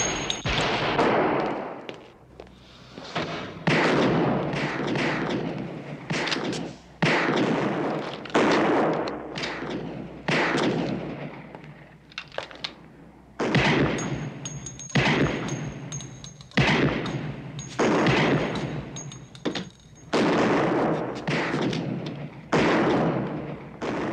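Handgun shots fired one after another at a shooting range, about one a second with a few short pauses, each a sharp crack with a long echoing tail.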